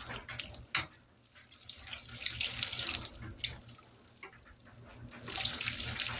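Macaroni being stirred in its pot of cooking water: watery sloshing that comes in waves, with a sharp knock of the spoon on the pot under a second in.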